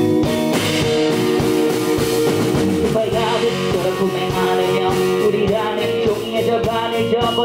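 Live band music: electric guitars, electric bass and drum kit playing a rock-style groove, with a vocalist on microphone over the band.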